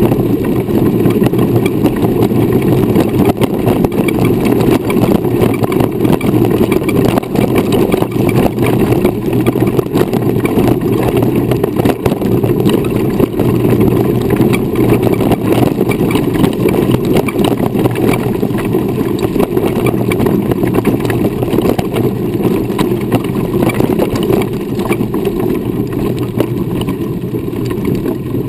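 Wheelchair rolling over a dirt road: a steady, loud rumble with constant small knocks and rattles, picked up through a camera mounted low on the chair.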